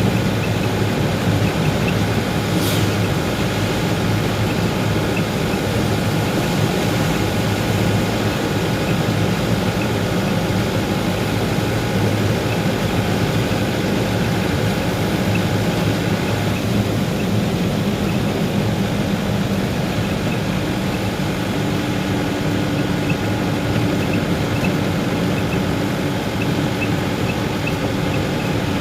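A vehicle engine running with a steady, unbroken drone while being driven, with one brief sharp sound about three seconds in.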